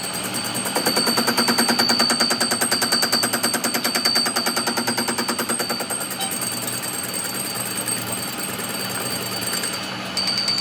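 Workshop machinery running, with a rapid, even stream of short knocks over a steady high whine and low hum. The knocks grow louder about a second in and ease off after about six seconds.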